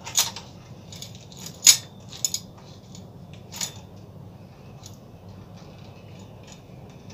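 Hard clicks and knocks of a ring light being fitted and adjusted on its tripod stand: a handful of sharp clicks, the loudest about a second and a half in, then fainter handling sounds over a low steady hum.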